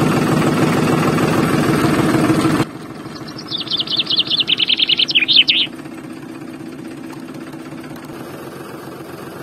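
A small electric DC motor drives a toy tractor's rear tyre through a roller with a loud, rattling buzz that cuts off suddenly about two and a half seconds in. A bird then sings a rapid trill of quick notes for about two seconds over a fainter steady hum.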